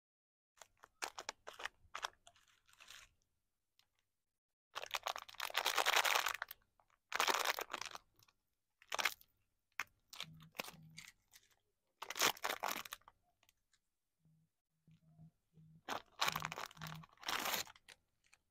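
Clear cellophane lollipop wrappers crinkling and crackling as they are handled and pulled open, in several separate bursts. The loudest is about six seconds in.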